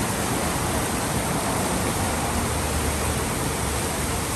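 Water from a cone-shaped fountain splashing steadily down its sides into the basin, a continuous even rush.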